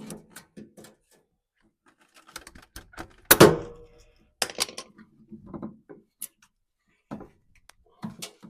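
Clicks and knocks of parts and tools being handled while a washing machine drain pump is swapped, with one loud knock that rings briefly about three seconds in.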